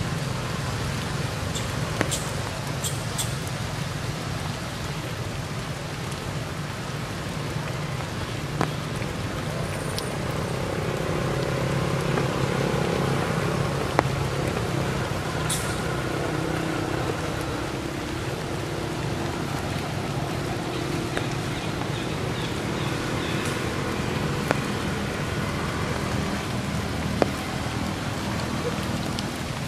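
Steady rain falling through the forest canopy over a low, steady hum, with a few sharp ticks of drips or snapping twigs.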